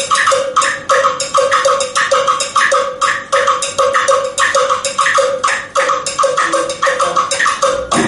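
Afro-Cuban percussion groove: congas playing interlocking parts with the cascara pattern and a bongo bell, a steady train of sharp, bright strokes several per second.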